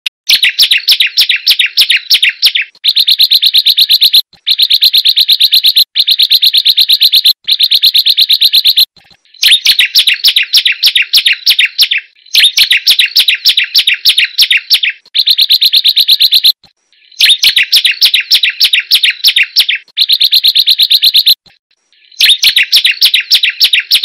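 Prenjak gunung (a prinia) singing loud, rapid trilling phrases, about ten bouts of one and a half to three seconds each, broken by short pauses.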